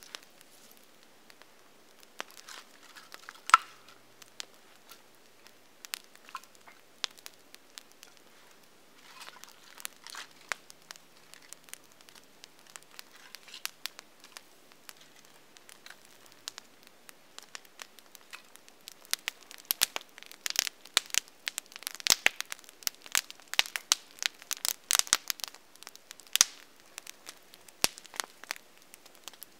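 Small campfire of dry twigs and split wood crackling, with scattered sharp pops at first, one loud pop early on, and a dense run of snaps from about two-thirds of the way through.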